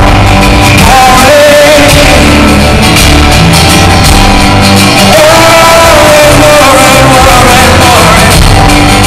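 Live band playing loud: a male lead singer holding long sung notes over strummed guitars, drums and a steady bass line.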